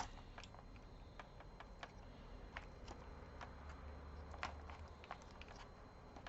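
Faint, irregular light clicks and taps from laptop parts being handled during disassembly.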